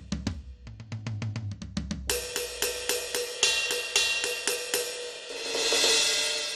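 Electronic drum kit's sound module playing kit sounds: a fast run of low drum hits for about two seconds, then repeated bright cymbal strikes, swelling into a sustained cymbal wash near the end.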